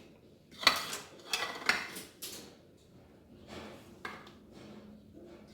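A knife and metal utensils clinking against a dish as a slice of frozen homemade ice cream is cut and lifted out. There are about four sharp clinks in the first couple of seconds, then a few softer taps.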